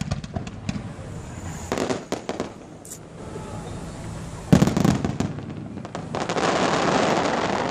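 Fireworks display: scattered cracks and pops, a loud boom about halfway through, then a dense, steady crackling hiss over the last couple of seconds.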